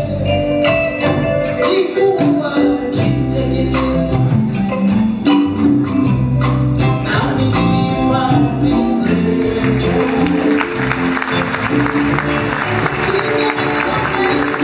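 Live band music from drum kit, hand drums, electric guitars and keyboard, playing a steady rhythmic groove. About two-thirds of the way through, a dense hissing wash joins the music.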